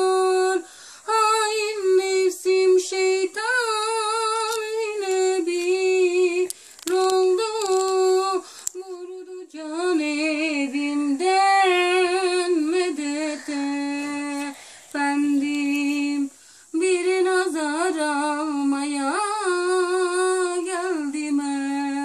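A woman singing a Turkish ilahi (Islamic hymn) solo and unaccompanied, in long ornamented phrases with short pauses for breath.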